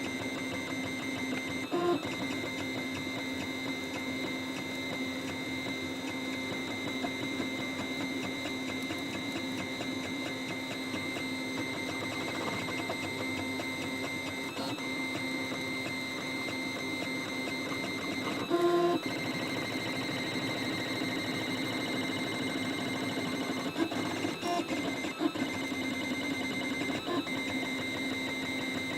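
3D printer running: a steady motor whine with a few short, louder chirps, the loudest about two-thirds of the way through.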